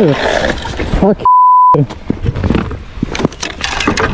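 A steady censor bleep about a second in, cutting over a man's shouted exclamations, which drop in pitch. Scattered knocks and rustling noise from the crashed rider's helmet camera fill the rest.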